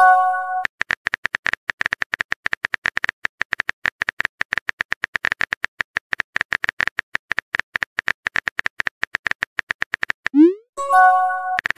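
Phone keyboard tap clicks as a text message is typed out, several taps a second. A short electronic chime sounds at the very start. About ten and a half seconds in, a short rising whoosh is followed by the same chime as a message is sent.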